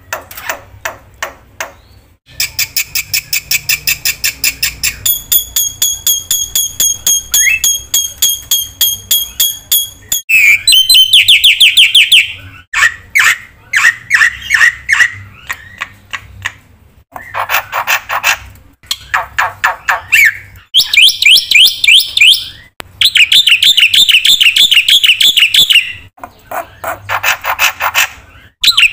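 Black-winged starling (jalak putih) in full song. It gives phrase after phrase of fast repeated chattering and squawky notes, the phrase changing every few seconds, a song filled with mimicked calls.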